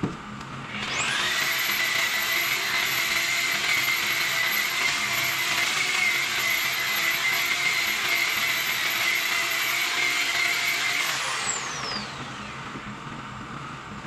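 Corded electric rotary polisher buffing an aluminium pontoon tube. Its motor spins up with a rising whine about a second in, runs steadily under load, then winds down with a falling whine near the end.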